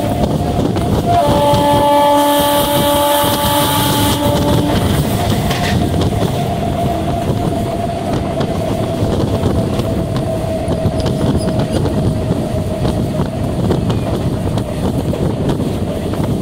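EMU electric suburban train's horn, a long steady blast starting about a second in and stopping about four and a half seconds in. After it, the train runs on along the track with a steady rumble and a faint whine.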